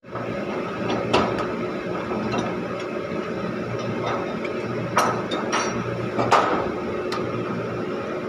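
Steel wire-rope slings and their metal fittings being handled on a steel ship's deck, giving about five sharp metallic knocks spread out over a steady machinery hum.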